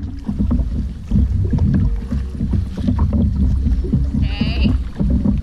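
Kayak paddling: water splashing and sloshing under a low, buffeting rumble of wind on an action-camera microphone, with a short high-pitched call about four seconds in.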